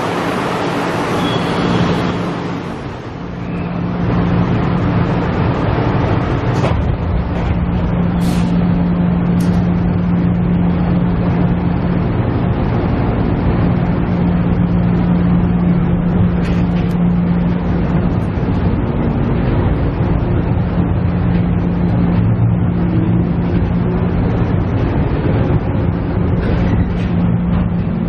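Inside a KiHa E130 diesel railcar: its underfloor diesel engine running steadily, with the rumble and rolling noise of the wheels on the track. A faint high tone sounds in the first two seconds, and the noise dips briefly about three seconds in.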